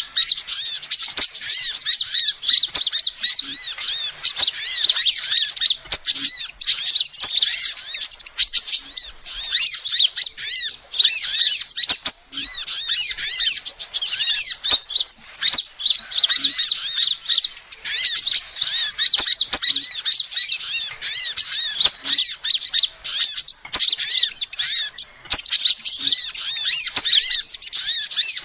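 Female sunbird (Indonesian 'kolibri') calling: rapid, high-pitched chirps in long, nearly continuous bouts with brief pauses.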